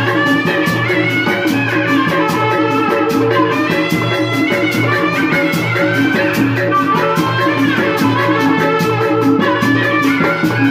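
Live tanji band music for a kuda renggong procession: wind instruments carry a melody over a steady, driving percussion beat.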